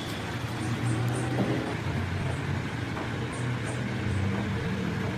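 Steady low mechanical hum of a running engine or motor, with a few faint ticks over it.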